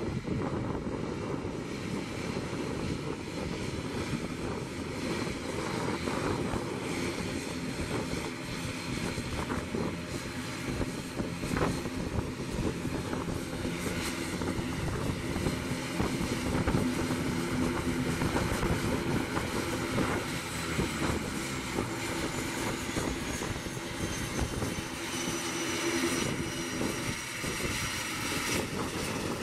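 ATR 72-600's twin Pratt & Whitney PW127M turboprop engines running at taxi power: a steady propeller drone with a high turbine whine that falls in pitch over the last several seconds as the aircraft turns.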